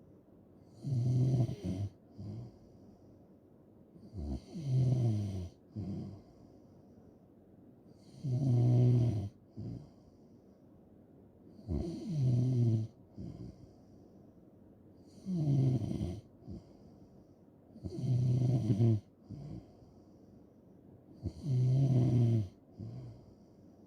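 A person snoring in a slow, even rhythm: seven loud snores about a second long each, one roughly every three and a half seconds, each followed by a short, softer breath sound.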